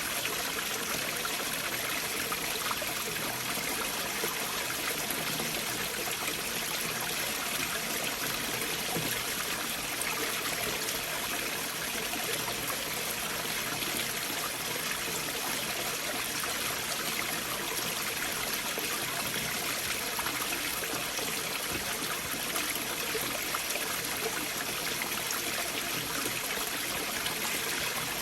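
Stream water flowing under and between large boulders: a steady, unbroken wash of water noise with no pauses or sudden splashes.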